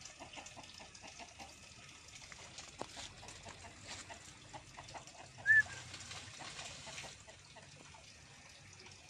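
A single short, high chirp from a bird, rising then dropping, about five and a half seconds in, over faint ticking and rustling in the undergrowth.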